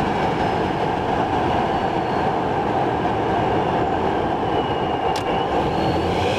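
Toyota Chaser's 1JZ-GTE turbocharged straight-six and drivetrain running at a steady load, with a constant rumble and no rev change. A single sharp click sounds about five seconds in.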